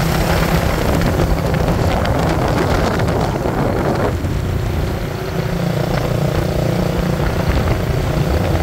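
A motor vehicle's engine running steadily under heavy wind rush, a low hum beneath a broad roar that eases slightly about four seconds in.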